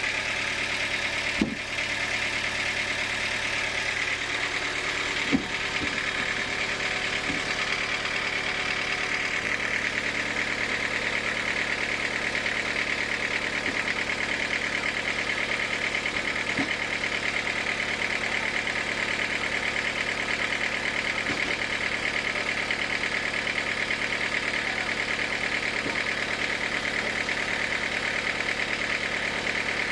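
Sawmill machinery running steadily: a constant motor hum with a steady whine that gets brighter about nine seconds in. Two sharp knocks in the first few seconds.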